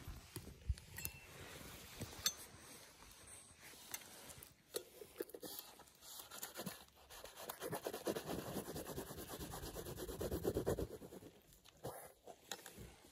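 A metal press plunger grating against the inside of a metal camp pot, with a few sharp metal clinks in the first seconds. Then a dense run of rapid scratching strokes for about four seconds, louder toward its end.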